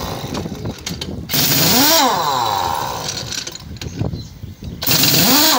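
Heavy-duty pneumatic impact wrench working the wheel nuts of a truck trailer wheel, run in two short bursts, about a second in and again near the end. Each burst has a rising-then-falling pitch as the tool spins up and down, over a hiss of exhaust air.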